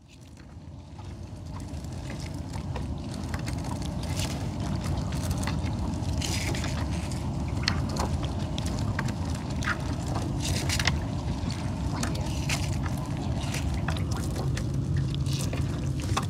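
Steady low rumble of a small boat on the river, fading in over the first couple of seconds, with scattered light knocks and clicks.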